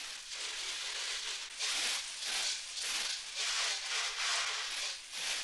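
High-pressure water jet spraying against a helicopter cabin in a watertightness test, a hissing rush that swells and fades about twice a second as the jet sweeps across.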